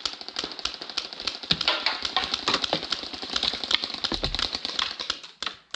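Rapid paintball marker fire: a dense run of quick, sharp pops, many a second, that thins out near the end.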